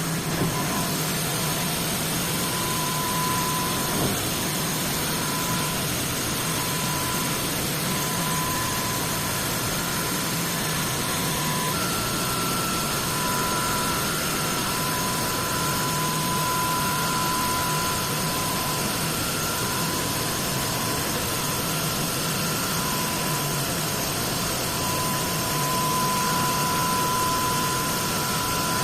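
Dahlih CNC machine running steadily: a constant mechanical hum and noise with a thin high whine that comes and goes, shifting to a slightly higher pitch partway through.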